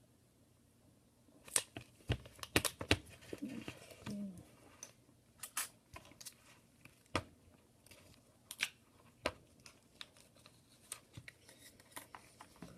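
Scotch tape being pulled, torn and pressed onto a cracked phone screen, with irregular sharp clicks and crackles starting about a second and a half in.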